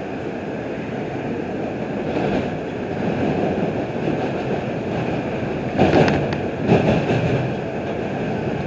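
Interior sound of an R142 subway car running between stations: a steady rumble of wheels on the rails. Two louder clattering bursts come about six and seven seconds in.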